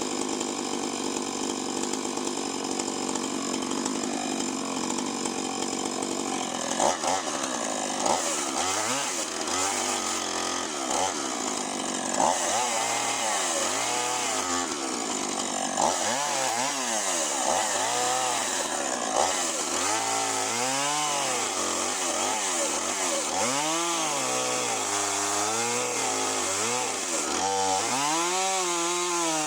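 Husqvarna 450 Rancher two-stroke chainsaw with a 20-inch bar ripping lengthwise through a big black oak log. It runs steadily for the first few seconds, then from about seven seconds in its engine speed repeatedly dips and recovers every second or two as the load in the deep cut varies.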